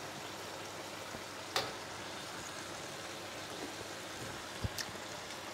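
Soy and oyster sauce with water boiling in a wok of stir-fried vegetables, a quiet steady hiss as the sauce reduces and thickens. One faint click about a second and a half in.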